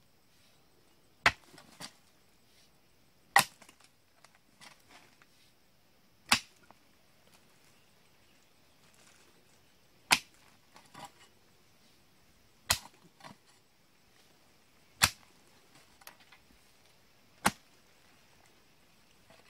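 A pickaxe struck into hard earth seven times, one sharp hit every two to three seconds, several followed by smaller knocks.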